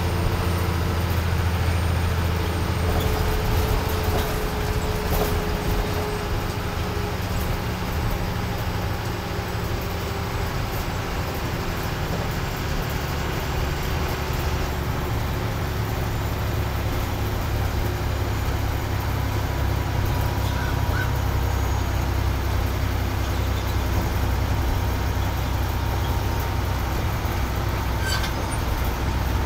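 Bus engine and road noise heard from inside the bus cabin while it drives along a highway: a steady low rumble, with a faint engine tone that drops slightly in pitch over the first several seconds and a few small rattling clicks near the end.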